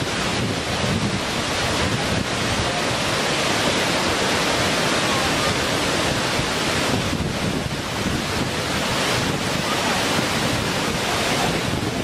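Waterfall cascading over rock ledges: a steady, dense rush of falling water.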